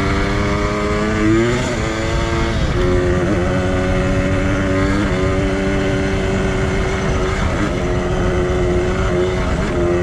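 Yamaha DT 125 X motorcycle's two-stroke single-cylinder engine running under way. Its pitch rises over the first second and a half and drops about two seconds in. It then holds steady with small dips every second or two.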